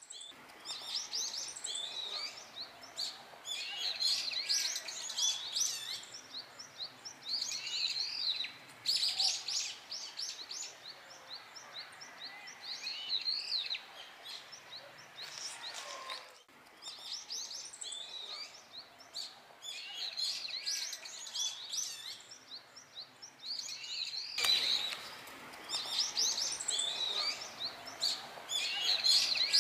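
Brown-eared bulbuls calling loudly, dense runs of shrill, overlapping chirps coming in bouts with short lulls between.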